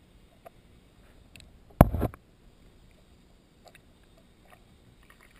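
Muffled underwater sound picked up by a camera in its waterproof housing: faint background hiss with a few small clicks, and one loud knock lasting under half a second about two seconds in.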